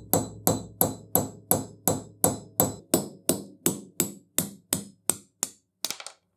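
Hammer striking a steel pin punch again and again, about three even blows a second, each with a short metallic ring, driving out the broken spindle-securing pin of a cast-iron bench vise. The blows end with a few quicker, lighter taps.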